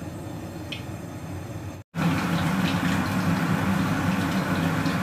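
Breaded pork chop deep-frying in hot oil in a pan: a steady sizzle with faint crackles. It cuts out for an instant about two seconds in and comes back louder.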